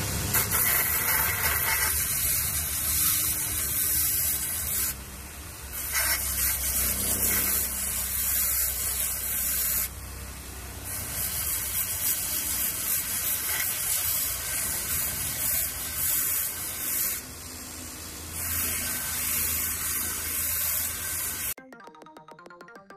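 Power sander abrading a wooden knife handle with sandpaper, a steady loud hiss that eases off briefly three times as the tool is lifted or shifted. It cuts off shortly before the end, leaving faint music.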